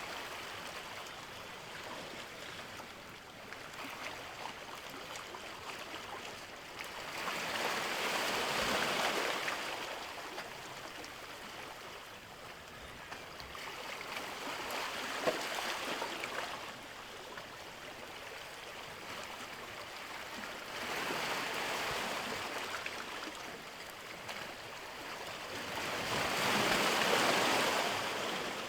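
Small sea waves washing onto a beach, the hiss of the water swelling and falling back in a slow rhythm, four washes about six seconds apart.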